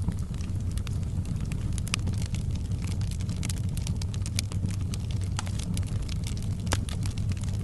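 Fireplace wood fire crackling, with frequent irregular sharp pops and snaps over a low, steady rumble.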